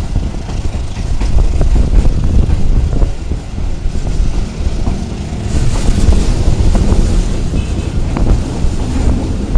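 Passenger train rolling along the track: a loud, steady low rumble with scattered wheel clicks, and wind buffeting the microphone.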